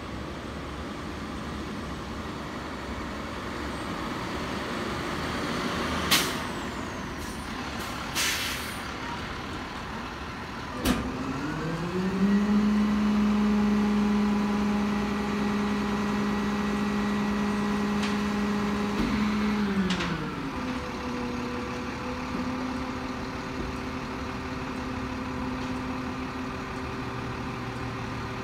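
Garbage truck's diesel engine: two short hisses of air about six and eight seconds in and a knock a few seconds later, then the engine speeds up, holds at a steady high speed for about eight seconds and drops back to idle, as a refuse truck does when it runs its packer hydraulics while standing.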